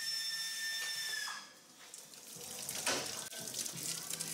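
Hot water and steam hissing and dripping inside an opened PMW cabinet parts washer. A steady high whistle at the start stops about a second and a half in.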